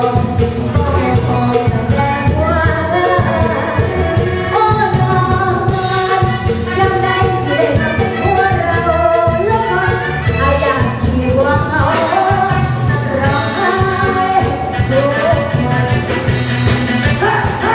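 Live Thai luk thung song: a woman singing into a microphone over a full band with bass and drum kit keeping a steady beat.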